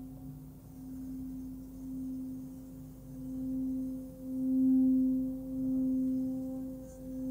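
Hand-forged Nepalese singing bowl, 16.4 cm across, sung by rubbing a suede-covered wooden mallet around its rim: a steady hum near 260 Hz (the note C) with a fainter octave above. It swells in slow pulses about once a second and grows much louder from about four seconds in.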